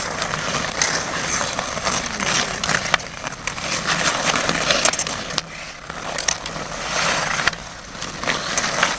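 Ice skate blades scraping and carving across rough pond ice, with hockey sticks and the puck clacking in many sharp clicks throughout.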